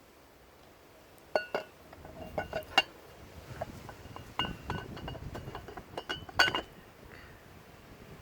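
Metal-on-metal clinks and taps, some ringing briefly, beginning about a second and a half in, with the sharpest strikes near three seconds and six and a half seconds.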